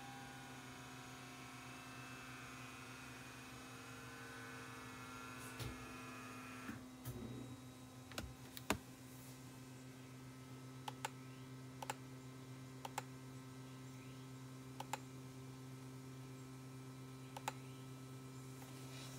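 A dozen or so separate clicks of a laptop's keys and touchpad, spaced out and unhurried, one louder than the rest about nine seconds in, over a steady low hum; higher steady tones in the hum cut off about seven seconds in.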